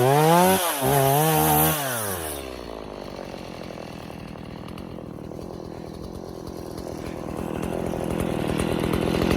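Two-stroke chainsaw revved for about two seconds, its pitch wavering, then dropping back to a quieter idle; the engine sound builds again near the end.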